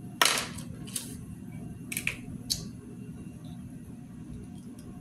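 Plastic packaging of small doll parts being handled: a few short, sharp crackles or snips, the loudest just after the start and the last about two and a half seconds in, over a steady low hum.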